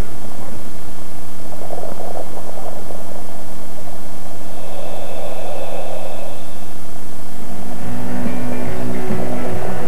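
A diver's breathing through a surface-supplied diving helmet, heard over the helmet's communications line: slow swells of regulator hiss every three to four seconds over a steady electrical hum. Rock music starts near the end.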